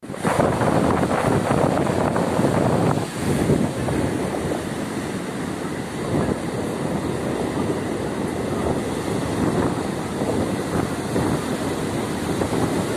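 Sea surf washing onto the beach with wind buffeting the microphone: a steady, fairly loud rush that dips briefly about three seconds in.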